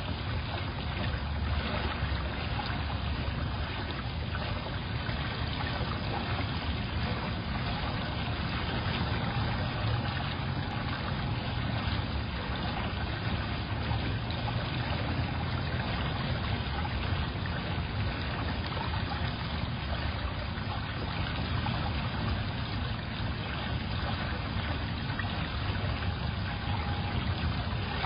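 Steady trickling, running-water noise with a low rumble beneath, picked up through a security camera's microphone.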